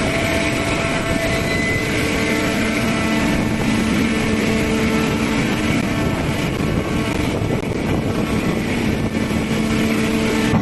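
A 400-ton hydraulic metal baler running: a steady machine drone with a constant pitched whine over dense mechanical noise.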